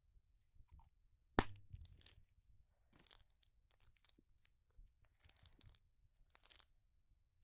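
Faint handling noises: one sharp click about a second and a half in, then a series of short, soft rustling, crinkling sounds about once a second.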